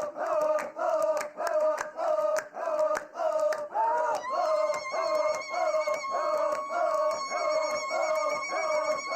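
Sufi dhikr group chanting in the hadra: a rhythmic, repeated group chant of about two syllables a second. About four seconds in, a single high note comes in and is held over the chant.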